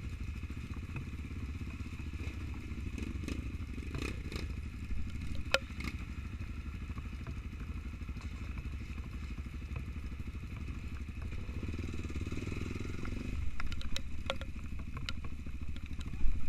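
Trail motorcycle engine running at a steady low pace, a little louder for a moment around twelve seconds in, with scattered sharp knocks and clatters, the loudest near the end.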